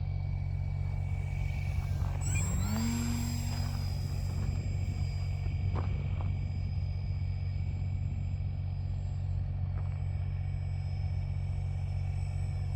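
Electric RC model airplane's 3536 brushless motor whining. About two seconds in its pitch rises as it throttles up, then it holds a steady high whine, over a constant low rumble.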